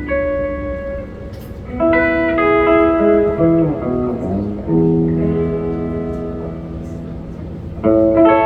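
Electric guitar played through an amplifier, instrumental: ringing chords struck every two to three seconds, with a run of sliding, bending notes near the middle.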